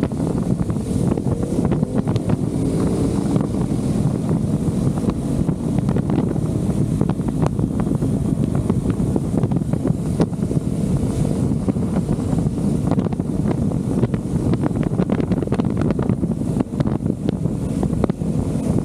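Wind buffeting the microphone of a motorcycle riding at road speed, a steady low rush, with the bike's engine running faintly underneath.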